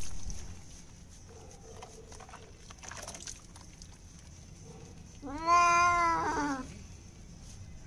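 Domestic cat giving one long, drawn-out meow about five seconds in, rising a little and then falling, its protest at being lathered in a bath.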